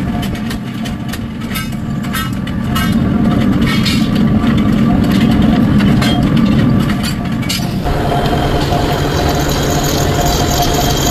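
Metalworking workshop noise: sharp clanks and knocks of metal on metal over a low machinery hum. About eight seconds in it changes abruptly to a steadier motor hum with a faint steady whine, as a drill bores through steel flat bar.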